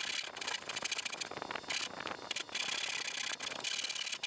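Dovetail backsaw sawing down the tail cuts through two boards clamped together, in steady back-and-forth strokes about one a second.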